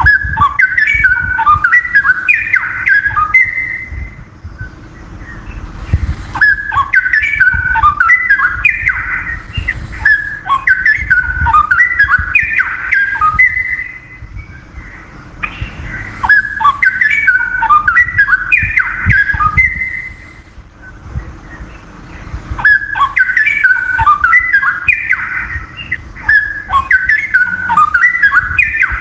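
Straw-headed bulbul singing loud, bubbling, warbled song phrases. The phrases come in bouts of several seconds, each followed by a short pause of a second or two.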